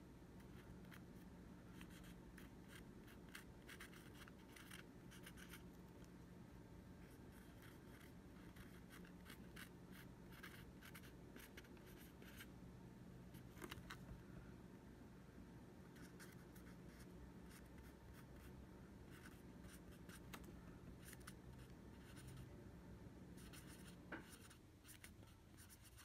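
Faint scratching and squeaking of a red Sharpie permanent marker writing on a plastic walkie-talkie battery cover, in many short strokes.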